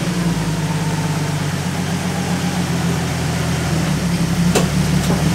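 Jeep Wrangler TJ engine idling steadily, with two short clicks near the end.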